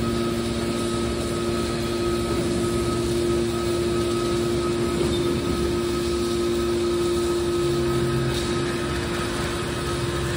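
Hydraulic scrap metal baler running: the electric motor and hydraulic pump give a steady hum with a higher whine as the cylinders slowly swing the baler's lid.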